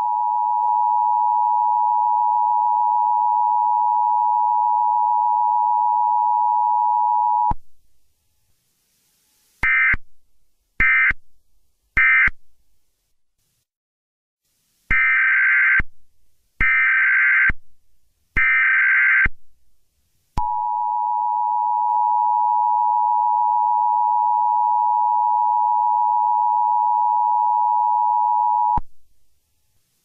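Electronic beep tones: a long steady tone lasting about eight seconds, then three short higher-pitched beeps and three longer ones, then the long lower tone again for about eight seconds.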